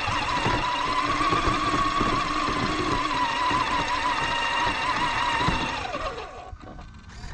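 Electric drive motor and drivetrain of an Axial Yeti XL RC truck whining steadily as it drives over grass, with rumbling and small knocks from the wheels and chassis. About six seconds in, the whine slides down in pitch and fades as the truck slows.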